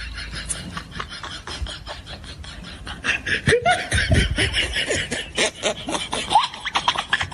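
Laughter in quick bursts, growing louder about three seconds in.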